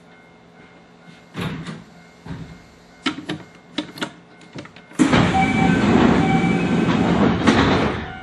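Cab of a stopped Kintetsu Ikoma Line electric train: a few scattered clicks and knocks, then about three seconds of loud rushing hiss that starts and stops abruptly.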